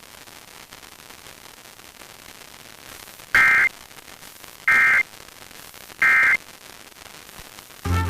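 Emergency Alert System SAME data tones: three short, identical bursts of the warbling two-tone digital screech, about a second and a quarter apart. This is the End of Message code closing the required monthly test. Faint radio hiss comes before the bursts, and the station's music comes back just before the end.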